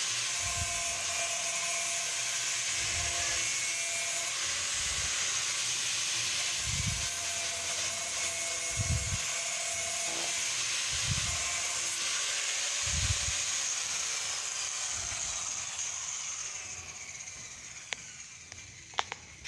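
Electric angle grinder smoothing the freshly cut rim of a plastic paint bucket: a steady high whine with the disc rubbing against the plastic. In the last few seconds it is switched off and winds down with a falling whine, followed by two clicks.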